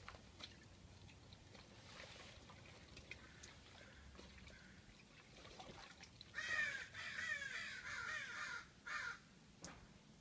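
A crow cawing several times in quick succession, starting about six seconds in and lasting nearly three seconds, each call a harsh falling note.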